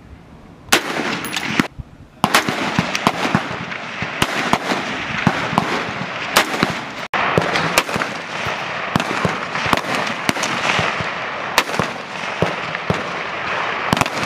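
Gunfire from 5.56 mm M4 carbines on a rifle qualification line. Sharp single shots come at irregular intervals, starting about a second in, over a constant scatter of overlapping shots and their echoes from other firing lanes.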